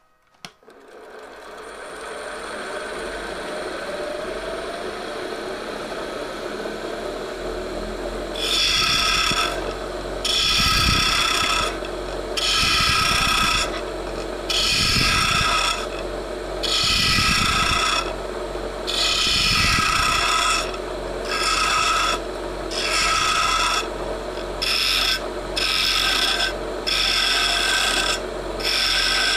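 Wood lathe starting up and running, then a turning tool cutting into the spinning ash blank in repeated passes: a scraping cut about every two seconds from about a third of the way in, coming shorter and quicker near the end.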